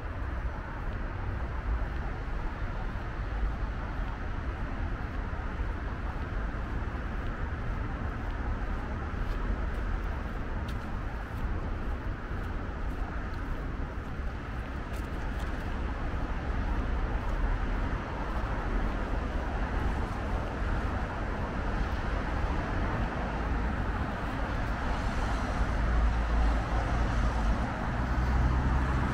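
Steady urban road-traffic noise, a low rumble from cars on nearby streets, growing louder near the end.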